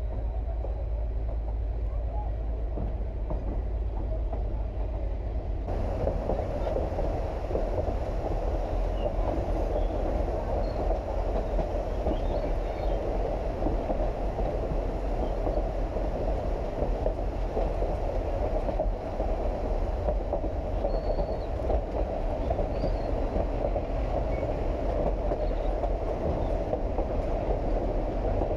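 Durango & Silverton narrow-gauge passenger train running on the track, a steady rumble of wheels and cars heard from aboard. About six seconds in the sound becomes brighter, with more hiss.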